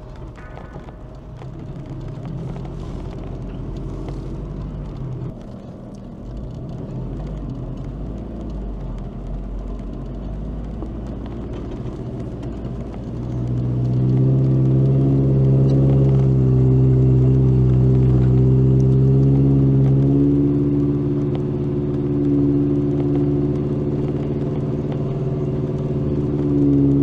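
Toyota pickup truck's engine running as it drives a dirt trail, a low rumble at first, then from about halfway through a louder, steady engine drone as it pulls up the hill.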